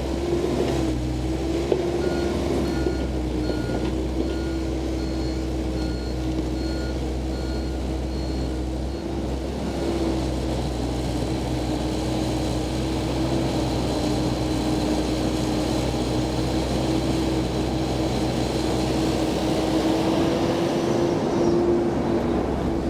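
Komatsu PC88 excavator's diesel engine and hydraulics running steadily with a constant whine. From about two seconds in to about nine seconds, its travel alarm beeps about twice a second as the machine tracks.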